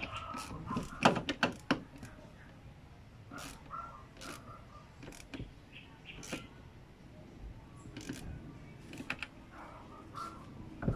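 Ratchet wrench clicking with metal tool knocks as a nut on the car battery's fastening is tightened: a quick run of clicks about a second in, then single clicks about once a second.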